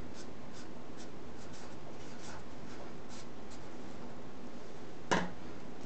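Felt-tip marker writing on paper in short strokes, then a single sharp knock about five seconds in.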